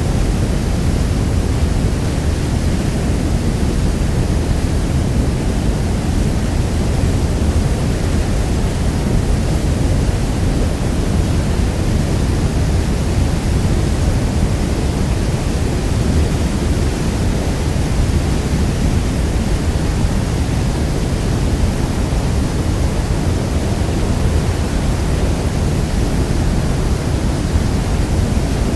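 Niagara Falls' water falling: a steady, unbroken rush of noise, heaviest in the low end.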